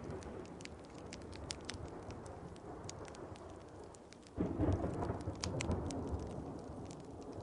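Steady rain with many sharp crackles and ticks over it, and a low roll of thunder that breaks in suddenly about four and a half seconds in and slowly fades.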